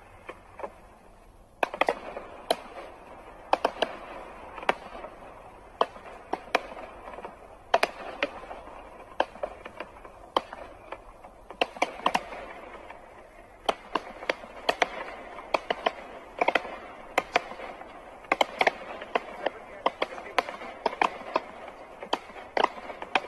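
Fireworks display going off: irregular sharp bangs and crackles, at times several a second, over a steady hiss.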